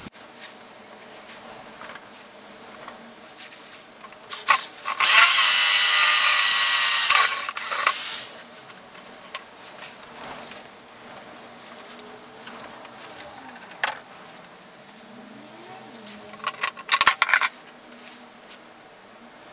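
Electric drill boring into the steel frame of the milling-machine stand, drilling the holes to be tapped M4 for mounting a junction box. A short blip, then about four seconds of steady running with a brief break near the end, and later a quick run of short bursts.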